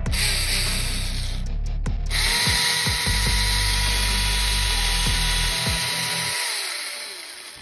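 Cordless electric chainsaw running without cutting, pulled twice: a short run of about a second and a half, a brief stop, then a longer run whose whine winds down and fades near the end.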